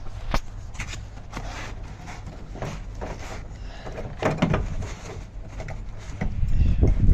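Scattered clicks and knocks of plastic and metal door parts being handled and worked loose inside a BMW X5 E53 door, with a louder cluster about four seconds in and a low rumble building near the end.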